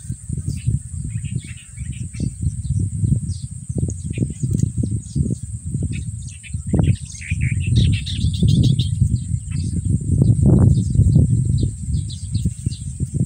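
Birds chirping in short scattered calls, with a quick run of chirps a little past the middle, over a steady high insect buzz. A loud, uneven low rumble runs underneath and is the loudest thing heard.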